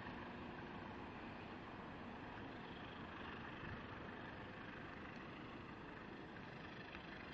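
Faint, steady rumble of a moving train, with no distinct wheel clatter or horn.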